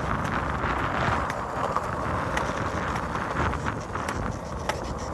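Strong wind buffeting the microphone with a constant rumble, with many small scattered clicks.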